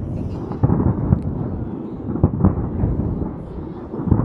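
Aerial firework shells bursting in quick succession, heard from afar as a continuous low rumble with several sharper booms.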